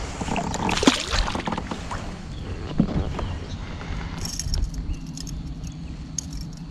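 Knocks and rustling of handling aboard a Native Watercraft Slayer Propel 10 pedal kayak, with a few sharp knocks on the hull in the first three seconds and lighter clicks later.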